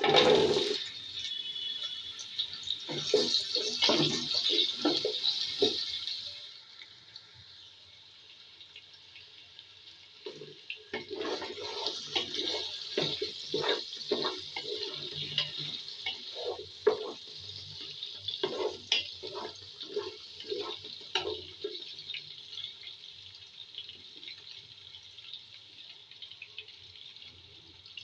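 Potato and carrot pieces dropped into hot oil, sizzling strongly for the first few seconds. The sizzle then eases before coming back as the pieces fry and a spatula stirs them, with frequent short knocks and scrapes against the pot.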